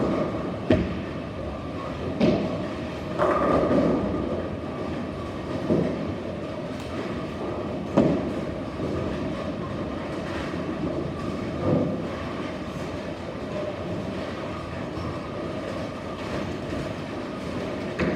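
Bowling alley sounds: a steady rolling rumble from balls travelling down the lanes and from the lane machinery, broken by several sharp crashes and knocks of balls hitting pins.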